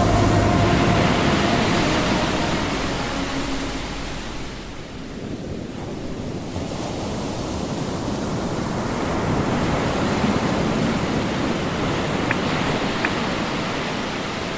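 Sea rushing and splashing along the hull of a J/35 sailboat heeled under sail, mixed with wind on the microphone; the rush eases about five seconds in and builds again.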